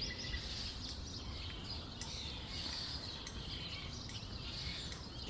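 Songbirds chirping and singing in short, overlapping high phrases over a steady low background rumble.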